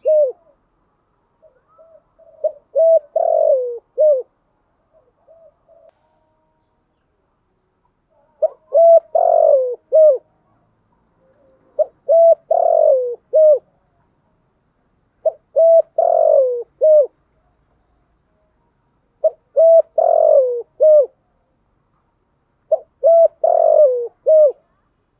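Spotted dove cooing in a repeated phrase of short hoots around one longer note that falls in pitch, six times, about every three to four seconds. It is a lure call played to stir a caged decoy dove into calling.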